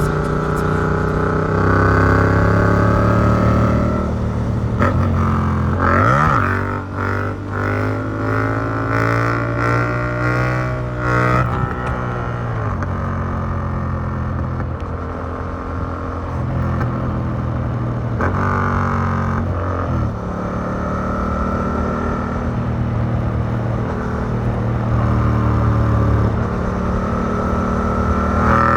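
Yamaha MT-07's CP2 parallel-twin engine through an Arrow Works exhaust with dB killer, heard from the rider's backpack, pulling under load as the bike is ridden hard. It revs up sharply about six seconds in and again around eighteen seconds, with the engine note changing through the gears in between.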